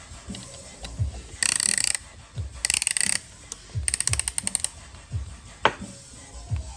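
Ratchet clicking in three quick bursts as a piston ring compressor is tightened around a forged piston's rings, over background music with a steady beat.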